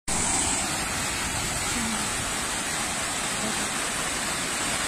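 Muddy floodwater from a downpour rushing across the ground as a fast, steady torrent.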